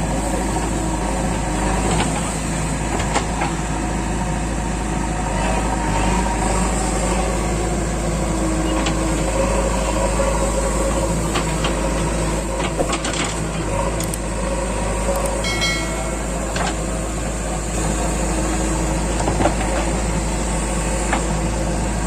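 Diesel engine of a JCB 3DX backhoe loader running steadily, with a few sharp knocks.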